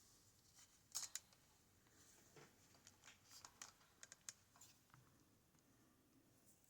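Faint, scattered small metallic clicks and taps of a high pin count lock and its pick tools being handled: two sharper clicks about a second in, then a quick run of clicks a couple of seconds later.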